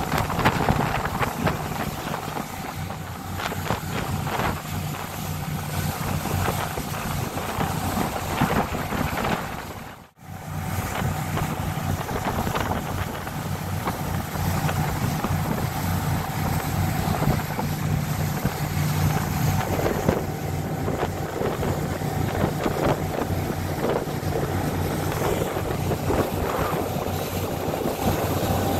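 Outboard motorboat running at speed: a steady engine drone under wind buffeting the microphone and rushing water. The sound drops out briefly about ten seconds in, then carries on the same.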